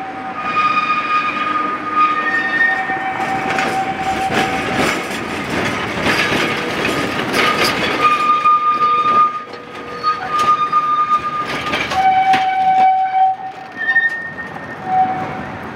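Steel wheels of a 1922 historic tram and its trailer squealing on a tight curve as the cars pass close by: a run of shifting high squeal tones, with clacks and clicks over the rail joints and points.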